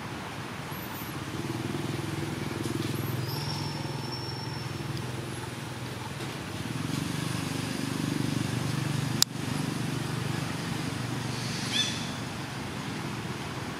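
Low hum of a motor vehicle's engine running, swelling twice, with a sharp click about nine seconds in and a few short high chirps.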